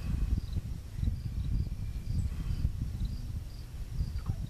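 Wind buffeting the microphone in uneven gusts. Behind it, insects chirp faintly and steadily, a short high chirp about twice a second.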